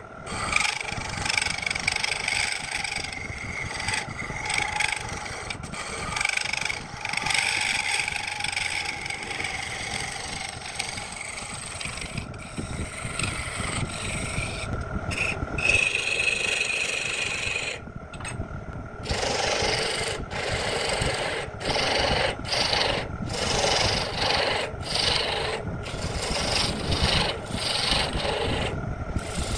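Wood lathe spinning a wooden spindle while a hand-held turning chisel cuts into it: a continuous scraping hiss over a steady tone. In the second half the cutting breaks into a quick run of short strokes, each under a second long.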